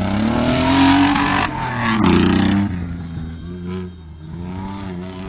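Off-road 4x4's engine revving hard under load as it climbs a dirt slope. Its pitch rises over the first second and a half, a second loud burst of revs comes about two seconds in, and then it drops back to a lower, wavering engine note.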